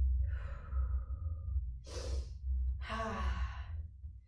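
A woman breathing hard through a set of dumbbell good mornings: three breaths in and out, in time with bending down and pressing back up. The first and last are drawn out and sigh-like, with a short sharp one between, over a steady low hum.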